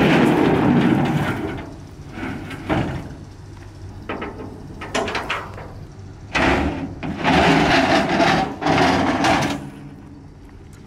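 Aluminium loading ramps being slid out of a bus lift gate, metal scraping on metal with sharp clanks and knocks. There are long scrapes at the start and again from about six to nine and a half seconds in, with short knocks between them.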